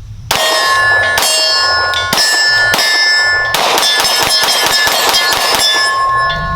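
Pistol shots striking steel targets, each hit setting the steel ringing like a bell. A few shots come about a second apart, then a fast string of hits follows about halfway through.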